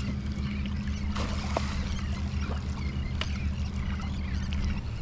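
Water lapping and splashing around a kayak, with scattered small splashes from bait fish and diving birds. A steady low hum runs underneath and stops abruptly near the end.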